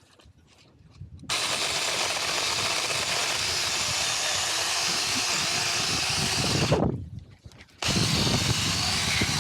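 Huing 6-inch cordless electric chainsaw cutting a branch: it starts suddenly about a second in, runs steadily for about five seconds, stops for about a second, then starts again.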